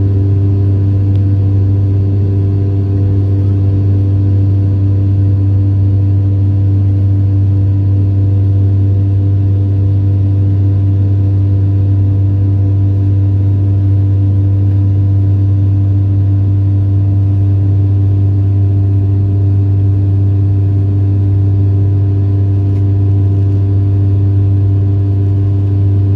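Cabin noise of a Sukhoi Superjet 100's PowerJet SaM146 turbofan engines in the climb after takeoff: a steady, loud low drone with several constant tones above it.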